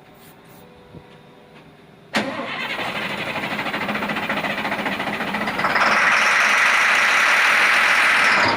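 Cat 950H wheel loader's diesel engine being cranked by its starter from about two seconds in, turning over without catching, since the fuel line system is suspected empty. About halfway through a loud hiss joins it: contact cleaner sprayed into the intake to force a start.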